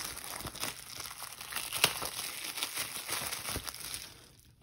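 Clear plastic shrink-wrap crinkling and crackling as it is peeled off a DVD case, with sharp snaps of the plastic, the loudest about two seconds in, and dying away near the end.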